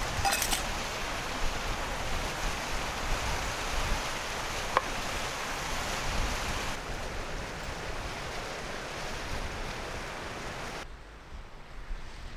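Steady rushing of a mountain stream, with wind buffeting the microphone in low gusts and a few light clicks of gear being set down. Near the end the rushing drops to a fainter level.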